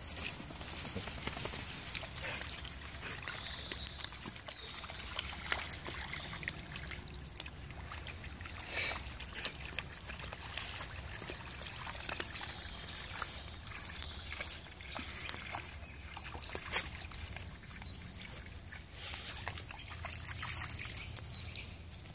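Dogs wading through a shallow rain puddle, water sloshing, splashing and trickling around their legs in irregular bursts. Short high bird chirps come through now and then.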